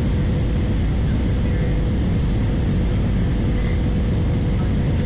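Steady in-flight cabin noise of an Airbus A320-214 with CFM56 engines: a continuous low rumble of engines and airflow, heard inside the cabin, with a faint steady hum running through it.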